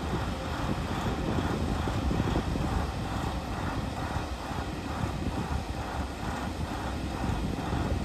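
Diesel shunting locomotive engine running steadily with a regular pulsing beat, and wind buffeting the microphone.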